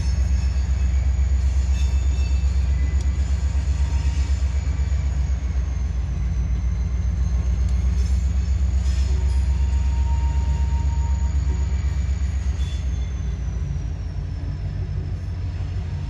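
Freight train rolling past, a steady heavy low rumble, with a thin high wheel squeal that shifts slightly in pitch a couple of times.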